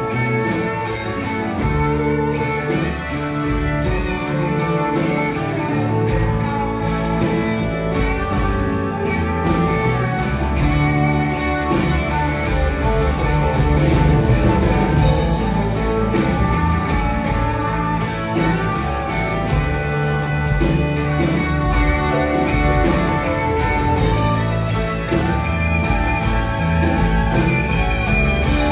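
Live band playing an instrumental stretch of a country-rock song, with electric guitars, fiddle, bass and drums at a steady beat.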